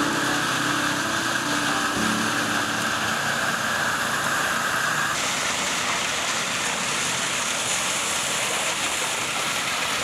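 Concrete pump running steadily as concrete discharges from its hose.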